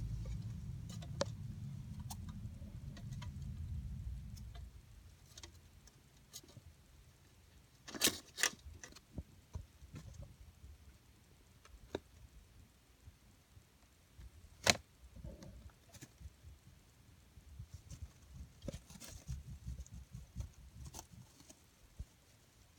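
Kinkuma hamster pattering and scratching about, with scattered light clicks and a few sharper ticks. A low rumble fills the first four seconds, then fades.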